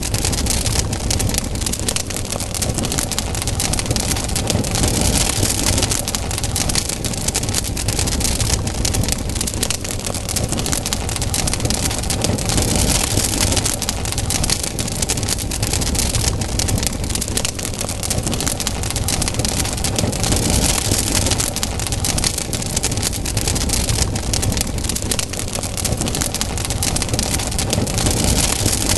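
Wood campfire burning: dense crackling and popping over a steady rush of flame that swells and fades every several seconds.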